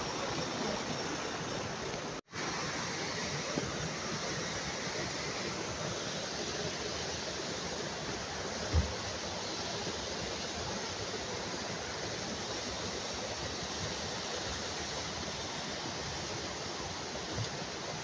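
Mountain stream rushing over rocks and small cascades, a steady hiss of water. The sound cuts out for an instant about two seconds in, and there is a single low thump about halfway through.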